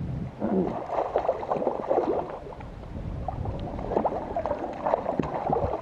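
A hooked fish splashing and thrashing at the surface right beside the boat, with water slapping and sloshing in quick, irregular splashes.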